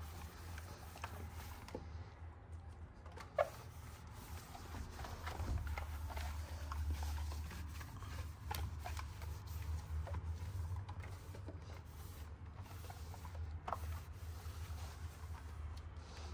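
Scattered light clicks and taps of household items being handled during cleaning, over a steady low hum, with one sharper click about three seconds in.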